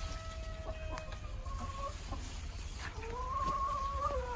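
Chicken calling: a couple of short held notes in the first two seconds, then one long drawn-out call of nearly two seconds that rises a little and dips at the end.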